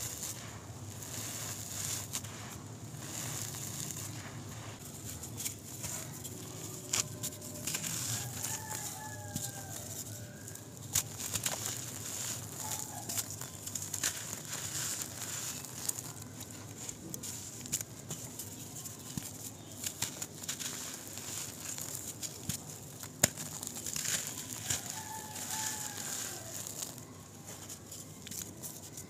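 Dry, gritty dirt clods crunching and crumbling between bare fingers, with many small sharp crackles as the lumps break and loose soil falls. A bird calls in the background a few times.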